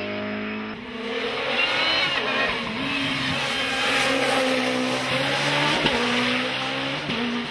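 Racing touring car engines at full throttle, revving high and dropping in pitch at each gear change as one car after another passes. The sound changes abruptly about a second in and again near the end, where one car gives way to the next.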